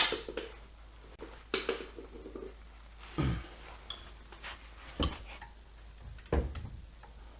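Metal hand tools clinking and clanking against each other and against the car's hub: about five separate short knocks, a second or two apart, as a torque wrench is being fitted to the rear hub bolts.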